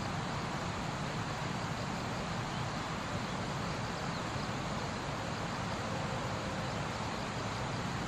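Steady rushing background noise with no distinct calls or events.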